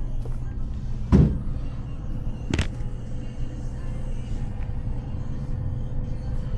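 Steady low hum of a shop interior. About a second in there is a heavy thump of the camera being set down on the shop counter, and a sharp knock follows about a second and a half later.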